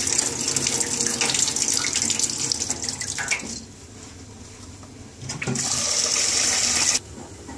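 Water running into a stainless-steel sink as red lentils are rinsed in a saucepan. The water stops about three and a half seconds in, then the tap runs into the pan again for about a second and a half and is shut off abruptly.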